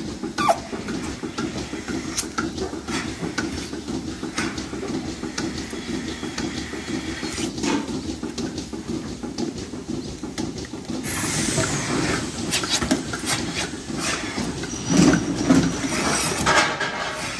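Milking parlour equipment running: a steady mechanical hum from the milking system, with repeated clanks and knocks as metal milking clusters are handled and attached. About eleven seconds in there is a burst of air hissing.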